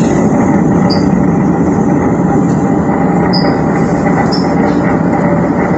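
Shigaraki Kohgen Railway SKR401 diesel railcar heard from inside the cabin, running slowly with a steady rumble from the engine and running gear as it brakes to a stop at a station. Short high brake squeaks come about a second in and twice more past the halfway point.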